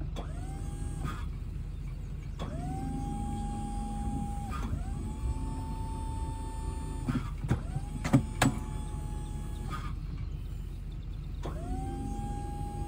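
Electric motor of a hive lift whining up to speed and running for a second or two at a time, about five times over, each run cut off with a click. A few wooden knocks from the hive boxes come near the middle, over a steady low rumble.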